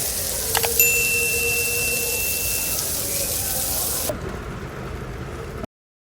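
Steady hiss of light rain and running rainwater, with a thin high tone lasting about two seconds near the start. The hiss thins out about four seconds in, and the sound cuts off abruptly shortly before the end.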